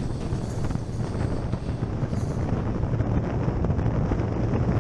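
Motorcycle riding at freeway speed, heard as engine and road noise under wind buffeting the camera microphone, mostly low and uneven.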